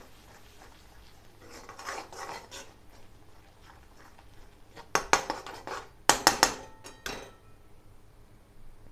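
Spatula stirring and scraping a thick masala paste in a kadhai, then two loud bursts of clattering knocks of the spatula against the pan, about five and six seconds in.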